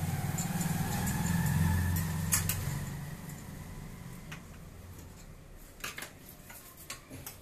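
Scattered light metallic clicks and clinks as a screwdriver and screws are handled against the folding table's steel frame. Under them, a low rumble is loudest in the first three seconds and then fades away.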